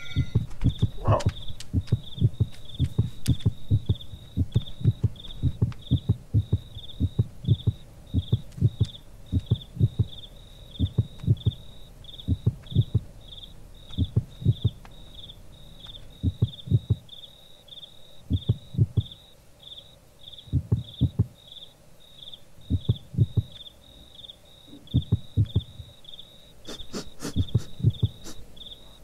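A heartbeat, quick and dense for the first few seconds, then slowing to clusters of beats about every two seconds, over a cricket chirping steadily about twice a second.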